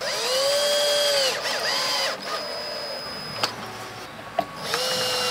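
Cordless drill-driver driving screws: its motor whines up to speed for about a second and winds down, gives a short second burst, and starts a third run near the end, with a few clicks in between.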